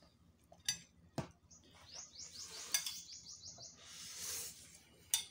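A fork clicks against a bowl a few times, and noodles are slurped about four seconds in. In between, a rapid run of high chirps, about five a second, lasts nearly two seconds.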